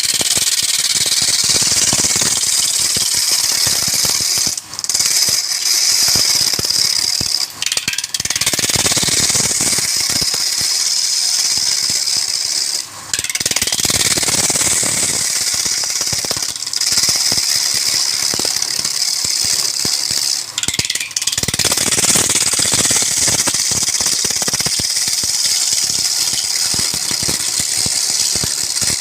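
Wood lathe with a turning tool cutting into the spinning wood: a steady, high-pitched scraping noise that breaks off for a moment about five times.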